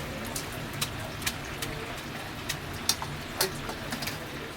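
Steady sizzle of tempura frying in hot oil, with scattered sharp clicks and clinks of kitchen utensils.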